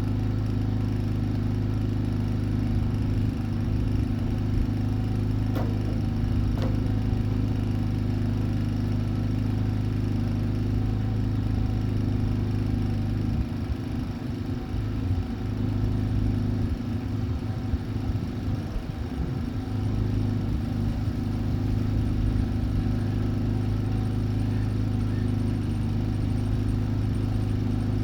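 Steady low machine hum with several fixed pitches, as from a running motor, with two faint clicks about six seconds in.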